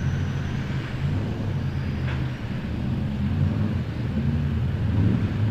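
Off-road competition 4x4 trucks' engines revving up and down as they crawl over rocks, the engine note rising and falling.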